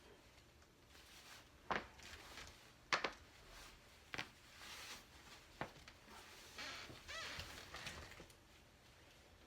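Spinal joints cracking: four sharp pops about a second apart, with softer rustling of body movement between them and near the end.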